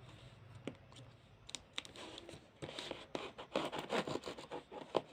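A knife scratching and scraping as it cuts open a parcel's packaging. There are a few scattered clicks at first, then busier scraping and crinkling strokes from about halfway.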